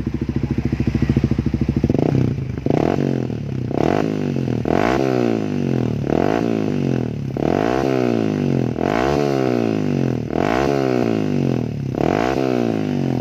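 Yamaha Vixion single-cylinder four-stroke engine breathing through an SKR stainless racing slip-on exhaust with a cone tip, with a bassy note. It idles, then from about two seconds in the throttle is blipped over and over, roughly once a second, each rev rising and dropping back.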